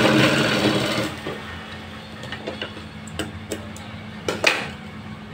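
Sewing machine stitching a seam, stopping about a second in; a steady low hum stays on, with a few sharp clicks and knocks as the cloth is drawn out from under the machine, the loudest near the end.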